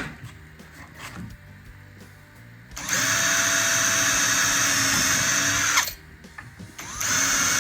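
Electric drill boring holes in a uPVC window sash for a bottom hinge. It runs steadily for about three seconds, stops, and starts again near the end.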